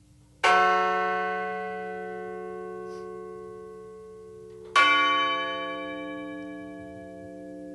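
A bell struck twice, about four seconds apart, each strike ringing on with a long, slowly fading tone. It is tolled in remembrance after a victim's name is read.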